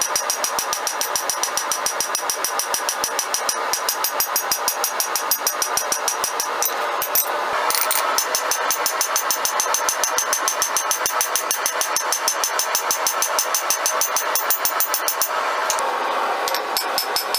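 A rounding hammer striking red-hot mild-steel flat bar on an anvil in a fast, steady run of blows, the anvil ringing after each one, as the rose petals are spread out thinner. The hammering breaks off briefly about seven seconds in and again near the end.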